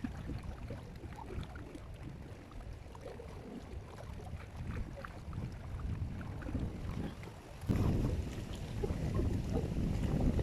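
Wind rumbling on the microphone, with scattered small clicks; it gets louder about three-quarters of the way in.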